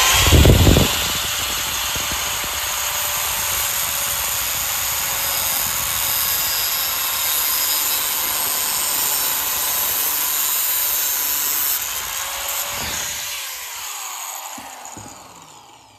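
Angle grinder with a thin disc grinding the protruding ends of a lathe tool holder's set screws flat. It starts with a brief loud burst, runs steadily while grinding, then is switched off about twelve seconds in and spins down with a falling whine.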